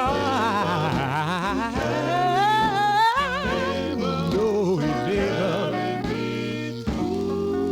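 1950s gospel quartet recording played from a 45 rpm record: the lead tenor sings drawn-out, embellished runs with wide vibrato over the group's steady background harmony. About seven seconds in, the voices settle on a new held chord as the song nears its end.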